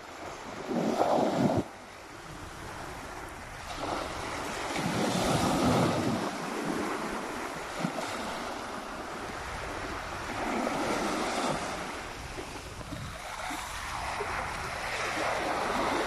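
Small waves breaking and washing up a sandy beach, the noise of the surf swelling and fading every few seconds. A short, loud rush about a second in stands out above the rest.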